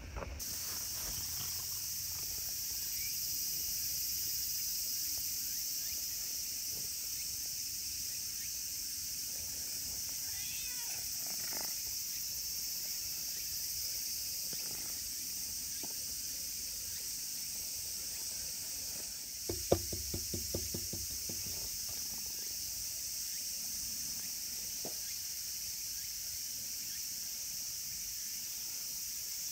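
A steady, high-pitched drone of insects runs throughout. A black-and-white cat meows a couple of times near the middle. About two-thirds of the way through comes a quick run of sharp taps, the loudest sound.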